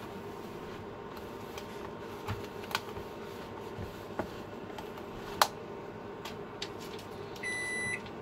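Plastic food-storage containers and lids being handled, scattered light clicks and taps with one sharper click about five seconds in, over a steady hum. Near the end a kitchen appliance gives one electronic beep.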